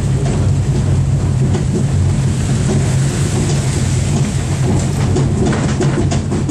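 A sightseeing train running, heard from on board: a steady low rumble of the ride, with some short clattering near the end.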